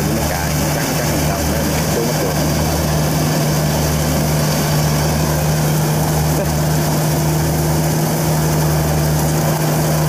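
Kubota Pro688Q combine harvester's diesel engine running steadily, with a constant hum over a low throb that pulses about once a second. A faint higher steady tone joins about seven seconds in.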